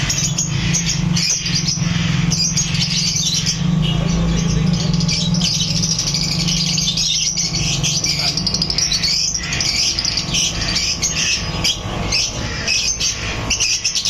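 Many caged birds chirping continuously, with a steady low hum that fades about halfway through.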